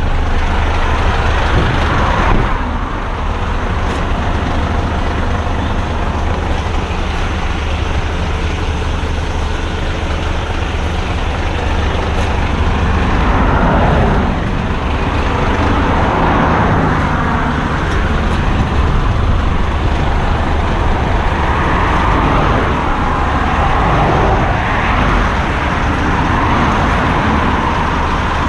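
Heavy garbage truck's diesel engine idling steadily at the roadside, a low constant hum, while several cars pass on the wet road, each swelling and fading over a few seconds.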